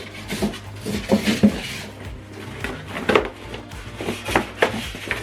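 Soundbar and its packaging handled during unboxing: scattered light knocks, clicks and rustles, over background music.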